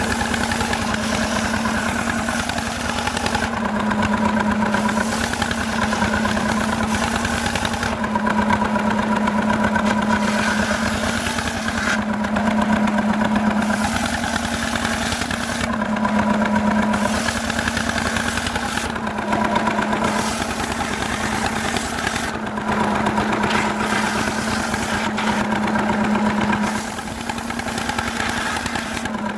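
Two-stroke Stihl chainsaw running at high revs and cutting jackfruit wood, its sound swelling and easing every two to four seconds as the load on the chain changes.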